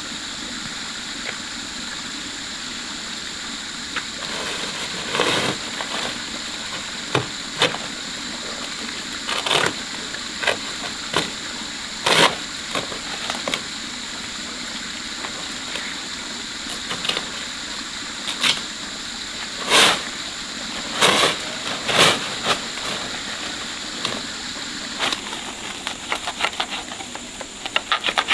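Irregular sharp knocks and clatters, one every second or few, over a steady hiss with a thin high whine.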